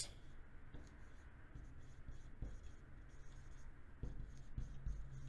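Dry-erase marker writing on a whiteboard: a run of faint strokes and scratches, a little louder in the second half.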